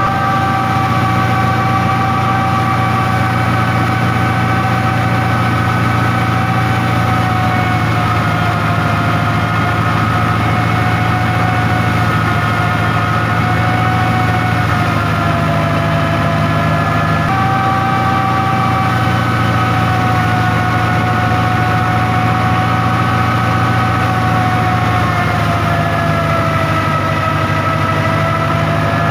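A tractor-driven wheat thresher running steadily: a high whine from the spinning threshing drum and belt pulleys over the low drone of the New Holland Dabung 85 tractor engine. The whine sags a little in pitch now and then and comes back up.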